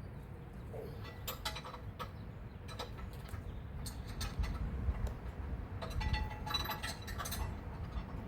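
Hand tools clinking and tapping against metal in a car's engine bay: scattered light clicks, with short bursts of metallic ringing about a second in and again around six to seven seconds. A low rumble sits underneath.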